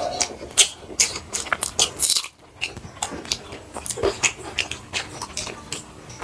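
Close-up crunchy chewing and biting: irregular, sharp crunches of raw onion being eaten along with roti.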